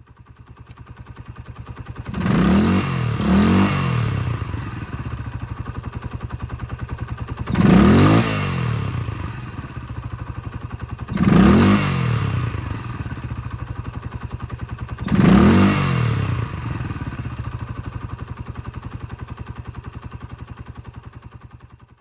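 Suzuki Grasstracker Big Boy's 250 cc single-cylinder engine idling through a BEAMS stainless silencer fitted with its standard baffle, revved five times up to about 5,000 rpm: two quick blips close together, then three single blips a few seconds apart, each dropping back to a steady, even idle. With the baffle in, the exhaust is quite quiet.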